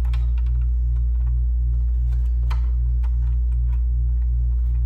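Scattered light clicks and taps of computer parts and a ribbon cable being handled during reassembly of a Macintosh Classic, over a loud steady electrical hum that pulses several times a second.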